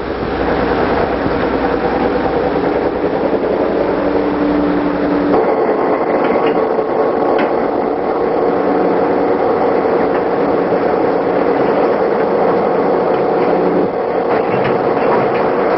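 Freight train rolling along the track: a loud, steady mechanical clatter and rumble of wheels and cars, changing character about five seconds in.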